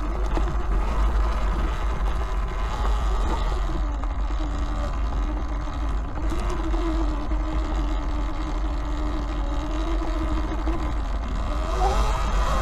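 E-Ride Pro SS electric dirt bike riding on a trail. Its motor whine holds a steady pitch, then rises near the end as the bike speeds up, over a heavy low rumble and drivetrain noise. The rider puts that noise down to a dirty jackshaft and thinks it is louder than it should be.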